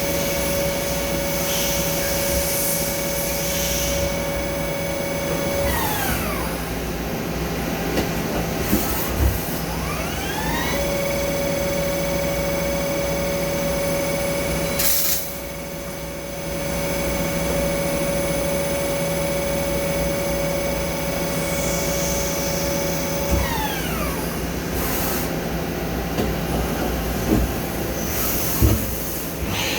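Machine-tool motor running with a steady high whine. It winds down with falling pitch, starts again and winds back up with rising pitch after a few seconds' pause, then winds down once more. A few short clicks and knocks fall in between.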